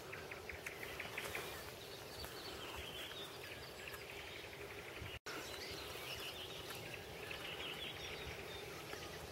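Faint outdoor background with small birds chirping: quick runs of short chirps and a few higher sweeping calls. The sound cuts out for an instant about halfway through.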